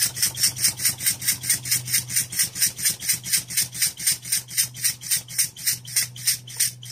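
Model uniflow steam engine with a 35 mm bore running on compressed air: a fast, even train of hissing exhaust puffs, about five a second.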